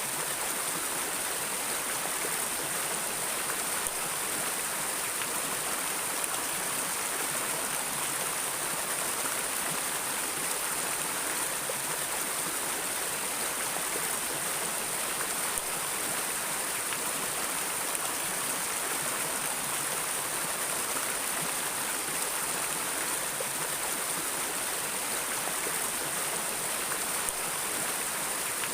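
River water flowing steadily, an even hiss that is heavier in the high end than in the low, with no change across the stretch.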